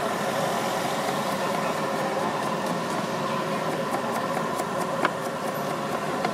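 Steady hum of an idling engine over street noise, with a sharp click about five seconds in.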